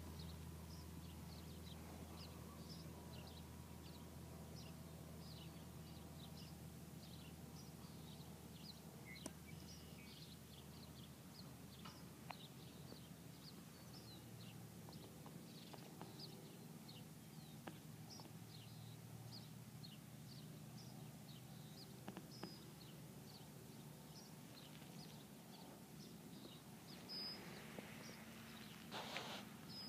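Quiet rural ambience: small birds chirping off and on, over a faint steady low hum, with a few soft clicks.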